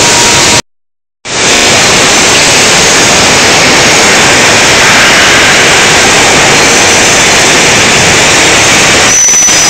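Loud, steady machinery noise from a running tube mill line, with steel strip feeding over rollers into a spiral strip accumulator. It drops out to silence for about half a second near the start, and a faint high whine appears near the end.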